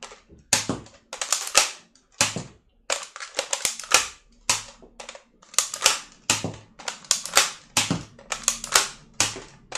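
Nerf Maverick REV-6 dart blaster being primed and fired over and over: a steady run of sharp plastic clicks and pops, some coming in quick clusters, roughly one to two a second.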